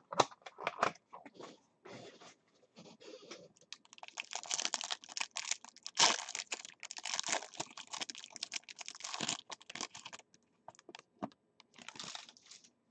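Football trading cards being handled as a pack is opened: the wrapper crinkles and the cards are slid and shuffled against each other, a run of crackles and clicks. It is busiest from about four to ten seconds in.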